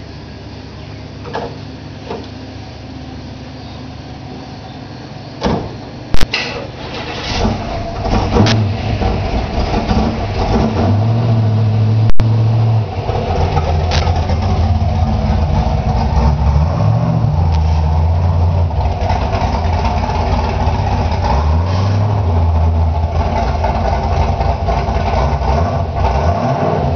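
A 1970 Chevrolet Camaro's V8 engine being started: a few clicks and a loud knock, then the engine catches about seven seconds in and settles into a loud, steady run. It is revved briefly a couple of times while the car is driven at low speed.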